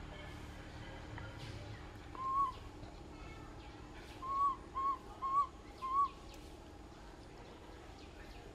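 Five short whistle-like animal calls, each rising slightly and then falling. One comes about two seconds in and four follow in quick succession a couple of seconds later, over faint forest background sound.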